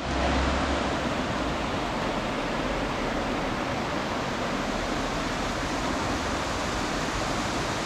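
Steady rushing water, an even noise that holds at one level throughout.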